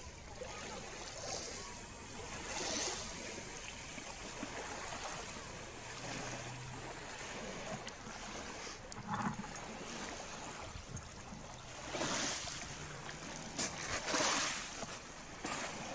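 Small lake waves washing onto a pebble beach, an even rush of water that swells a few times.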